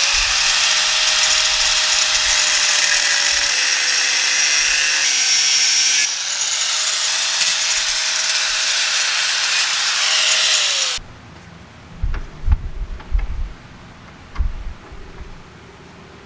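Small handheld grinder with an abrasive disc grinding metal on the end of a milling machine table: a steady high whine with a harsh grinding hiss, its pitch dipping as it is pressed into the work. It stops suddenly about eleven seconds in, followed by a few low knocks of handling.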